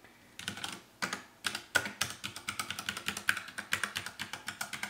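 Keys of a Ducky One 2 Mini 60% mechanical keyboard being pressed. A short cluster of keystrokes comes about half a second in, then rapid, continuous clacking keystrokes from about a second and a half on.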